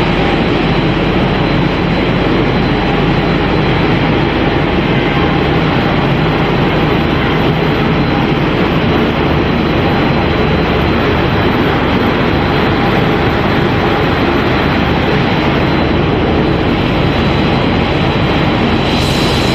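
Machinery of a cereal-flake processing line running: a steady, loud mechanical noise with a thin, steady high whine over it.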